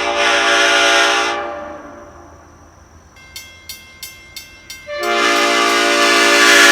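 Nathan Airchime P5 train horn with an old-cast P0 bell in place of the usual #4 (P0-1-2-3-5) sounding its chord, which cuts off a little over a second in and fades. After a pause and a quick run of about six short blips, the horn sounds its chord again about five seconds in, a little louder, and holds it.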